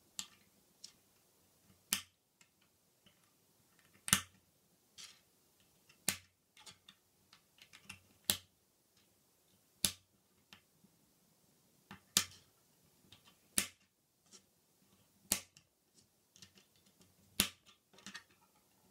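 K'NEX plastic rods snapping into their connectors by hand: a sharp click every second or two, with quieter rattling of plastic pieces between.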